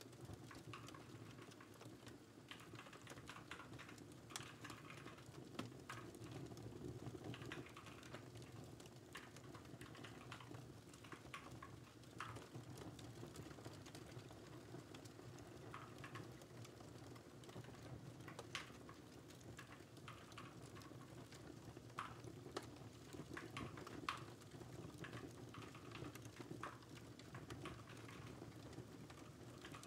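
Faint typing on a computer keyboard: irregular key clicks over a crackling fireplace fire.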